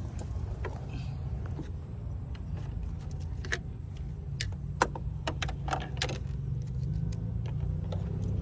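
A scatter of small sharp metallic clicks and rattles, most of them in the middle of the stretch, over a steady low hum.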